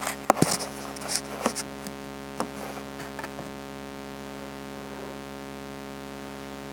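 Steady electrical hum, with a few knocks and clicks in the first couple of seconds as the phone is handled and set in place.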